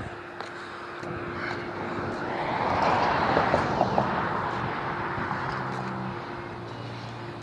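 Mini motorcycle's small engine passing close by, growing louder to a peak about three seconds in and then fading away.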